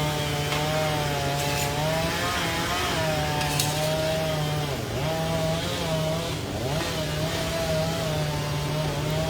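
Chainsaw engine running continuously, its pitch wavering and dipping briefly a few times as it cuts.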